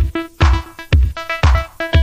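Electronic background music with a steady kick drum about twice a second under short, repeating synth notes.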